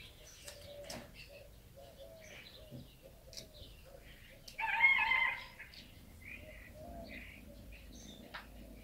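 Birds chirping in the background, with one louder call lasting under a second about halfway through.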